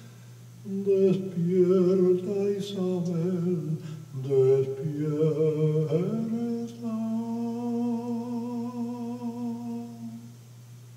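Unaccompanied male voice humming the closing phrase of a Spanish romanza melody without words. It moves through several notes with vibrato and ends on one long held note that stops about ten seconds in.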